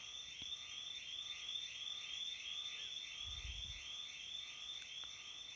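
A rhythmic chorus of calling animals pulsing about four times a second over a steady high whine, with a soft low thump about three and a half seconds in.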